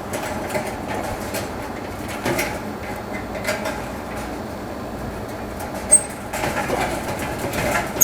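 Gloved hands working wire terminals against the plastic terminal block of a dryer heating element: scattered rustles and knocks, a sharp click about six seconds in and another at the end. Under it, a steady hum of room air conditioning.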